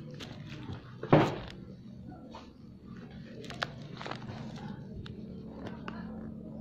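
Footsteps on a tiled floor and handling noise from a hand-held phone camera, with scattered small knocks and one loud rustling thump a little over a second in, over a steady low hum.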